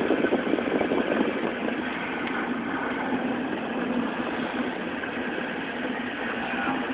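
Steady road and engine noise of a car driving at speed: an even, unbroken noise with no distinct events.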